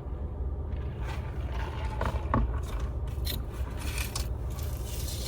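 Car engine idling as a steady low rumble heard from inside the cabin, with scattered scraping and rustling sounds on top.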